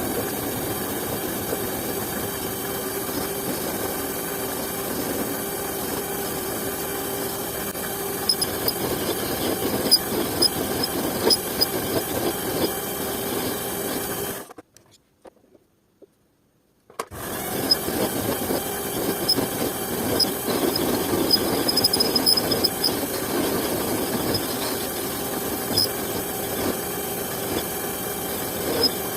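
A small motor running steadily with a constant whine and scattered ticks, cutting out for about two seconds midway and then starting again.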